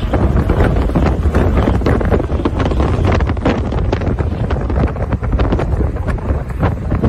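Heavy, gusty wind buffeting on the microphone of a camera riding in a moving vehicle, over a steady low road and engine rumble.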